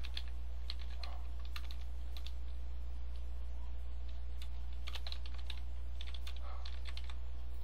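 Keystrokes on a computer keyboard, tapped in short uneven runs as a word is typed in, over a steady low hum.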